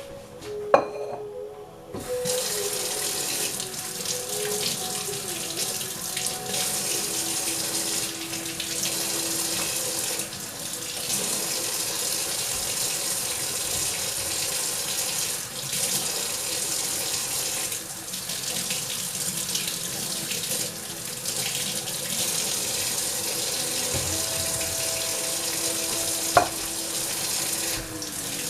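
Kitchen tap running water into a sink: a steady rush that starts about two seconds in, just after a click, with a single sharp knock near the end.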